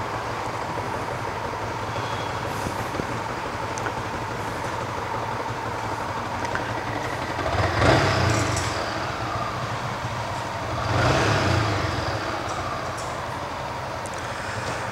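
Road traffic: a steady low engine rumble, with two louder vehicles passing about eight and eleven seconds in.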